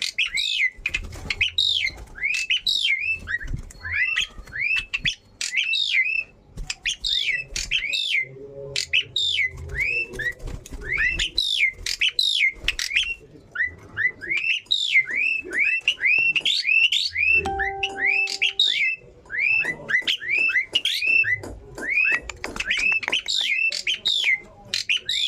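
Asian pied starling calling: runs of sharp, down-slurred whistled notes in quick bursts with short pauses between. A brief steady low hum sounds underneath about two-thirds of the way through.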